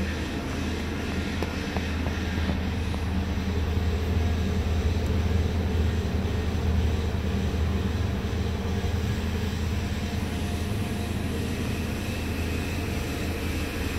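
2013 Nissan Armada's 5.6-litre V8 idling steadily, a low even hum that grows a little louder midway, when heard close to the tailpipe.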